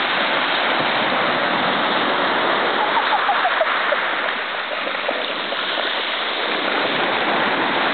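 Small waves breaking and washing in foam over a shingle beach: a steady rush of surf.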